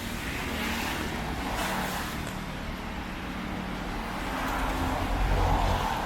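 Heavy typhoon rain and traffic on a wet street: a steady hiss of rain and tyres, with a vehicle passing close and its rumble and tyre spray swelling near the end.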